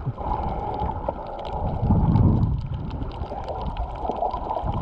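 Underwater sound picked up by a snorkeler's waterproof action camera: muffled rushing and gurgling of water that swells louder about two seconds in, with faint scattered ticks.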